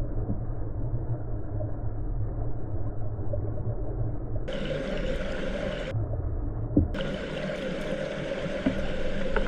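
Stream water rushing, heard through a GoPro in its underwater housing: a steady low rumble. The brighter hiss of water above the surface cuts in abruptly from about four and a half to six seconds in, and again from about seven seconds on.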